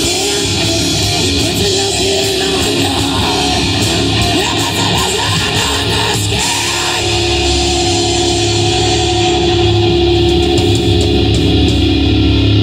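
Live rock band playing with distorted electric guitar, bass guitar and drums. About seven seconds in, long held notes ring out over the beat.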